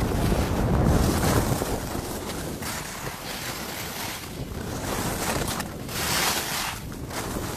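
Wind buffeting the microphone of a camera carried by a skier going downhill, with the hiss of skis sliding and carving on packed snow. A heavy low rumble fills the first second or so, and the snow hiss swells briefly about six seconds in, as in a turn.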